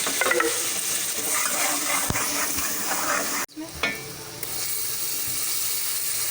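Masala of onions, ginger-garlic paste and ground spices sizzling in hot oil in a cooking pot while a spoon stirs and scrapes it. The sizzle cuts out suddenly for a moment about halfway, then carries on.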